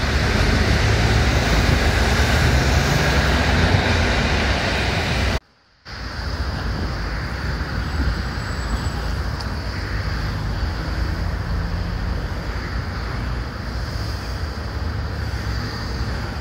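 Road traffic passing on a wet street, with wind buffeting the microphone. About five seconds in the sound cuts out for half a second, then a steady outdoor rush of wind noise continues.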